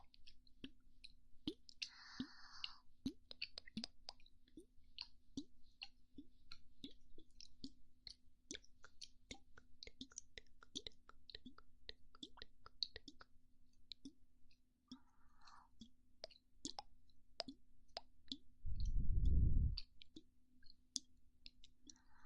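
Close-miked ASMR mouth sounds: irregular wet clicks and small pops, a few every second. Near the end comes one low puff of breath blown onto the microphone, the loudest sound.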